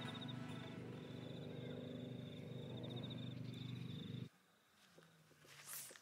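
Distant powered watercraft engine droning steadily with a fast pulsing beat. It cuts off abruptly about four seconds in, leaving faint outdoor quiet.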